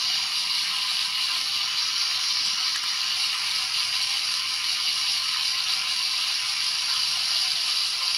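Recorded frying sizzle played from a toy mini frying pan's tiny built-in speaker: a steady, thin hiss with no low end.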